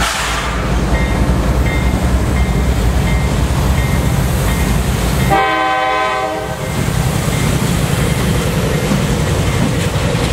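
A CSX freight train's cars rolling past with a steady heavy rumble and a regular wheel click about every 0.7 seconds. About five seconds in, a train horn sounds a short chord for just over a second.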